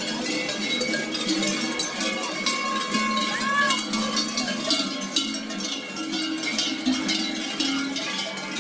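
Many large cowbells (Schellen and Treicheln) clanging continuously and irregularly as a crowd of marching children swing them with each step.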